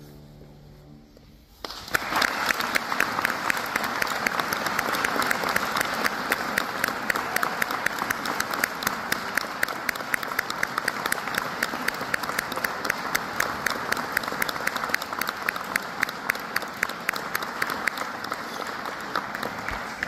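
Audience applauding, with many hands clapping densely. It breaks out about two seconds in, just after the last held piano notes die away, and begins to thin near the end.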